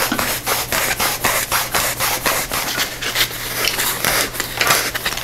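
Christmas light strands rustling and scraping as they are wound around a foam tube, in a quick run of rubbing strokes about four a second.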